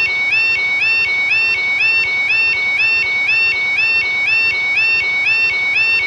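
UK level crossing warning alarm: a high electronic two-tone warble repeating rapidly and evenly as the crossing lights sequence from amber to flashing red.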